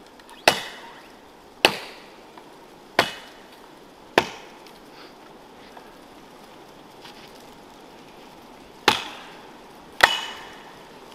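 Estwing axe chopping into the trunk of a live standing tree. Six sharp strokes: four about a second apart, a pause of several seconds, then two more near the end.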